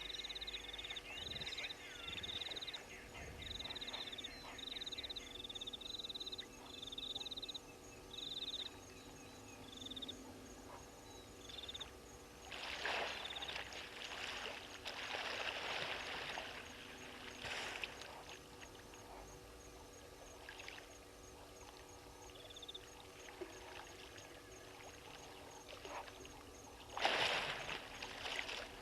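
Hippo moving in the dam water, with sloshing and splashing in the middle and a loud splash near the end. In the first half a short high call note repeats about once a second over a faint steady insect ticking.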